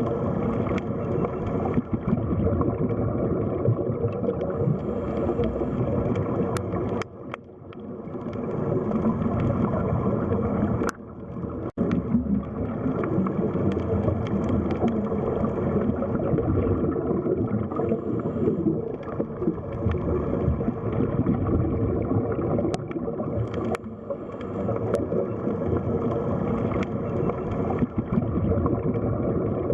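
Underwater sea ambience: a continuous muffled rush and gurgle of water, dipping briefly twice.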